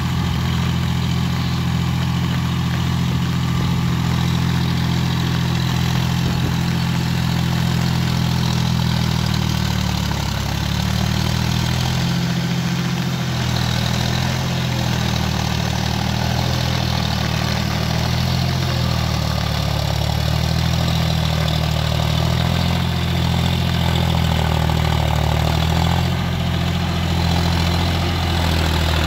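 John Deere 5050D tractor's three-cylinder diesel engine running steadily under load while pulling a rotary tiller through flooded mud, its pitch shifting slightly now and then.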